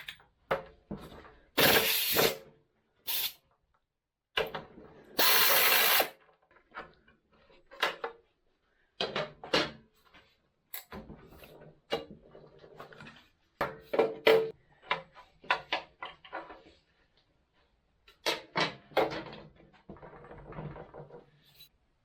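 Tools and metal parts clicking and clattering irregularly during motorcycle disassembly, with two louder bursts of noise, the second about a second and a half long.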